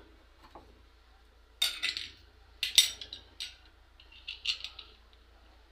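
Metal tools clinking and clattering as they are handled: a few clattery knocks from about one and a half to three seconds in, the sharpest near three seconds, and a lighter rattle near four and a half seconds.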